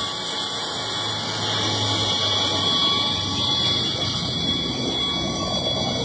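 A machine running steadily, with a faint high whine, during a tyre puncture repair.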